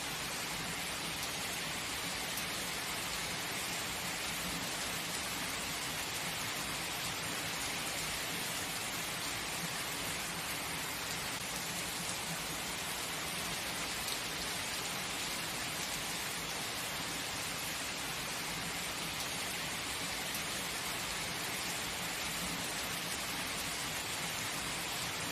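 Steady heavy rain falling on a surface, an even hiss of many drops that holds constant throughout.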